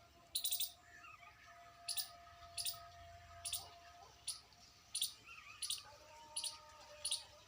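A small bird chirping repeatedly: short, sharp, high chirps about every half to three-quarters of a second.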